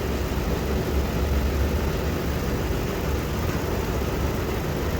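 Ford car's engine idling steadily while its AC system is being charged with refrigerant gas.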